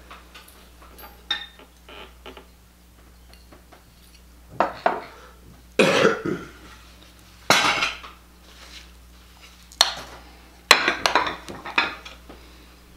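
Dishes and other tableware clinking and clattering as they are handled and set down, with several sharp knocks and clatters in the second half.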